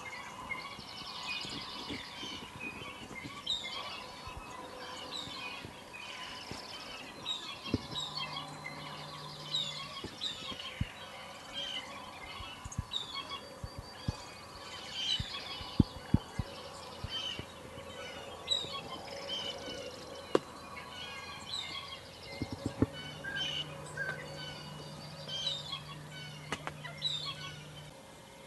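A flock of wild turkeys calling close by: many short, overlapping chirps and clucks with some fluttering purrs, and a few sharp taps, the loudest about halfway through.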